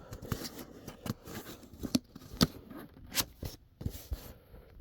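Hands handling collectibles and their packaging: scattered light clicks, taps and scrapes, with a few sharper knocks around the middle.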